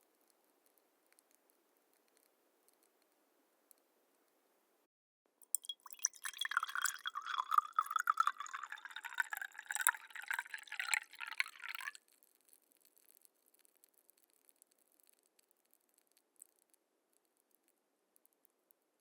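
Liquid poured into a glass in one continuous pour lasting about six seconds, starting about five seconds in and stopping abruptly. The splashing rises slightly in pitch as the glass fills.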